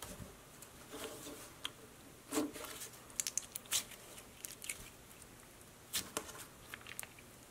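Crumbly layered glitter slime (Walmart's Rainbow Ooze) being squeezed and pressed together by hand, giving faint sticky squishes and scattered crackly clicks as the torn pieces pull and stick.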